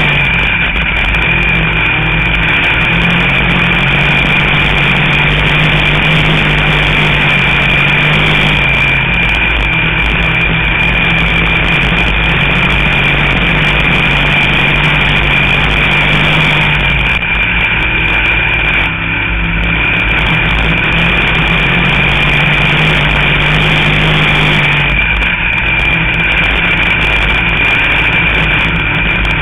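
Dirt-track sportsman race car's engine running hard, heard from inside the car; its pitch rises and falls every several seconds, with a steady high whine over it.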